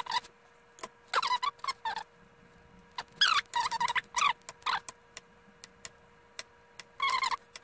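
A knife cutting raw plantain on a plastic cutting board. The blade squeaks through the firm, starchy flesh in three groups of short strokes, with single sharp clicks of the blade meeting the board in between.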